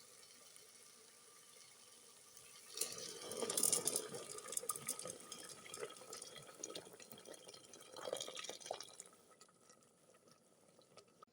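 Water or other liquid poured and splashing into a cooking pot, starting about three seconds in, loudest early on, with a second surge before it dies away.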